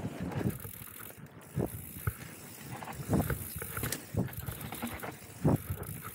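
Downhill mountain bike ridden fast over a dusty, bumpy dirt trail: the tyres run over loose dirt and the bike rattles, with several heavy knocks as it hits bumps, the loudest about three seconds in and again near the end.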